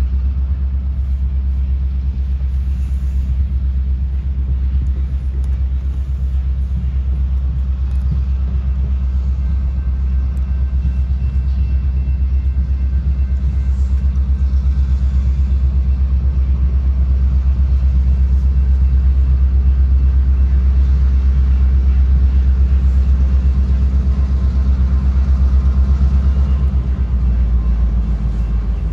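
Steady low rumble of a Norfolk Southern diesel freight locomotive approaching, easing slightly near the end.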